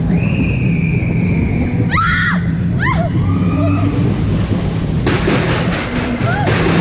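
A high-pitched scream held for about two seconds, then two short rising-and-falling squeals, over a loud low rumble and music; a rush of noise sets in near the end.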